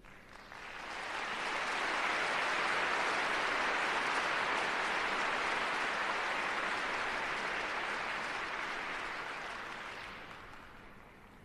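Crowd applause, a dense even clapping that swells in over the first second or two and fades out near the end.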